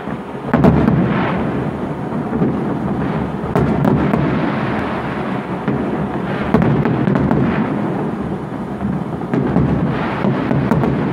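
Fireworks display: aerial shells bursting one after another, making a continuous rolling rumble of booms with sharp cracks scattered through it.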